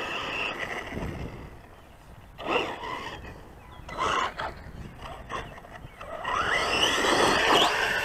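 Losi Lasernut U4 RC buggy's electric motor whining as it is driven over loose dirt, with rising whines near the end as it speeds up. Wind and outdoor noise run underneath.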